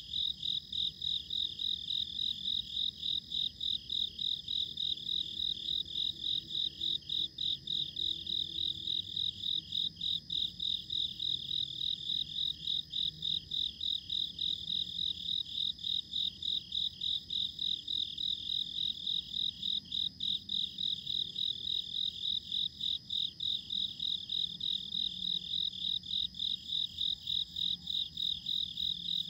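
Night insects, crickets, chirping in a steady high-pitched chorus that pulses evenly about three times a second.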